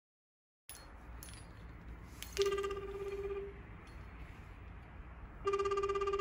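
Smartphone on speakerphone playing the ringback tone of an outgoing call. A low tone sounds for about a second, stops for about two seconds, then rings again near the end.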